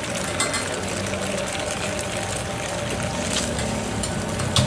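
Egg frying in oil on a flat steel griddle, a steady sizzle, with a couple of short knocks from a metal spatula on the griddle near the end.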